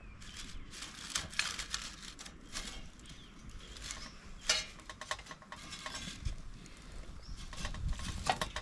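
Camp gear being handled: an irregular run of clicks, knocks and scrapes, the loudest about four and a half seconds in.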